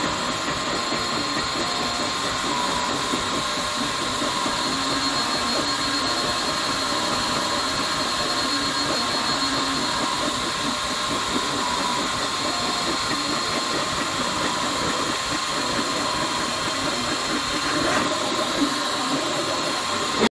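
3D printer running: a steady mechanical hiss with two constant high-pitched whining tones and a few faint clicks near the end.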